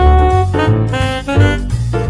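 Upbeat background music in a jazzy swing style, with horn melody lines over a walking bass.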